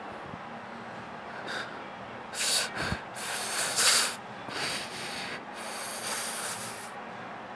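A person working out on the floor: a series of hissing breaths and rustles, with a soft thump about three seconds in.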